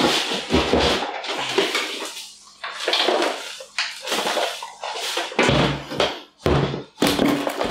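Loose soil substrate being handled and poured into a glass jar enclosure: rustling and pouring in a series of irregular bursts, each up to about a second long.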